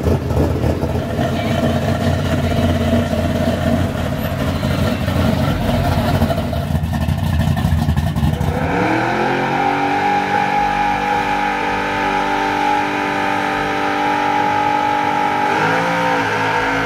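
A classic car's engine rumbling low as it rolls by. About halfway through, a first-generation Chevrolet Camaro's engine revs up and holds high, steady revs for a burnout, sagging briefly and climbing back near the end.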